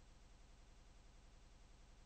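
Near silence: a faint, steady low hum with light hiss.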